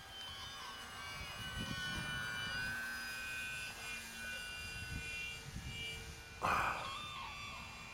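Distant whine of an electric model plane's motor and propeller, its pitch shifting as the throttle changes, with wind rumbling on the microphone. A short loud rush of noise about six and a half seconds in.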